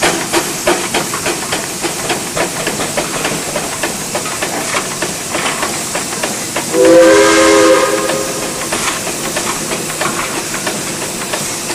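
Steam traction engine running, its exhaust chuffing in a steady beat over a constant steam hiss. About seven seconds in, a steam whistle blows for about a second, several notes sounding together, louder than everything else.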